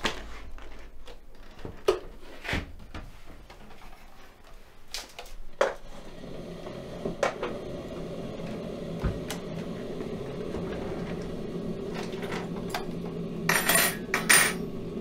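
Kitchen clatter of dishes and cutlery: scattered knocks and clinks, then a quick run of sharp clinks near the end. A steady hum comes in about six seconds in.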